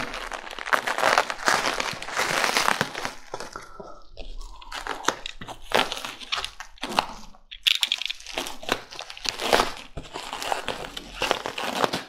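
Plastic bubble wrap crinkling and crackling as it is handled and pulled away from a cardboard box, in irregular bursts with a couple of short lulls.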